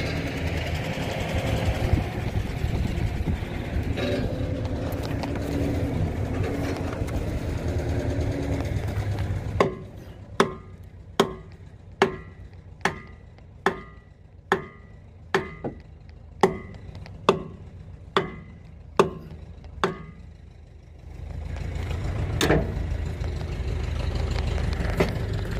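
Hammer blows on a steel truck wheel to knock a stuck wheel loose from the hub: about thirteen sharp, ringing metallic strikes at a steady pace of a little over one a second, with a steady low rumble before and after.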